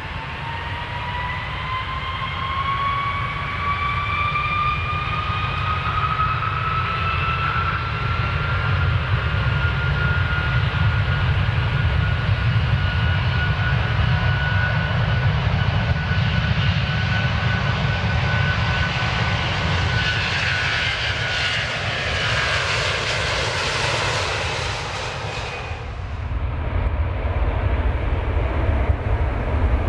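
Airplane jet engines spooling up for takeoff: a whine rises over the first ten seconds and then levels off above a steady deep rumble. A hiss builds until it cuts off suddenly about 26 seconds in, leaving the low rumble.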